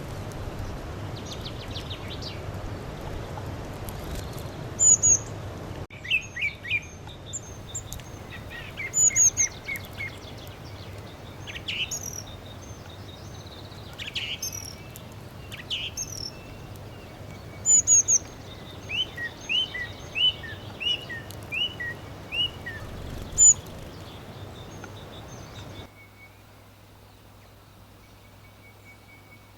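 Wild songbirds chirping and singing: scattered short chirps and whistled calls, then a quick run of about half a dozen repeated notes, over a steady background noise that drops off abruptly near the end.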